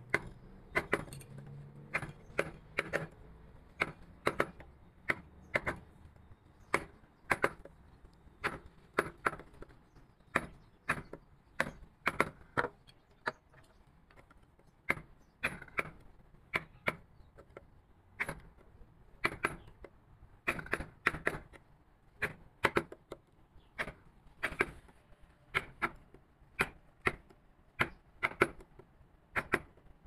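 Mallet tapping a wood-carving chisel into wood: a steady run of sharp knocks, about two a second, with a few short pauses.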